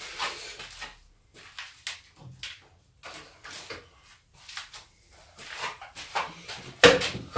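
Scattered knocks, clicks and rustles of someone handling tools and wood in a workshop, with a louder clatter near the end.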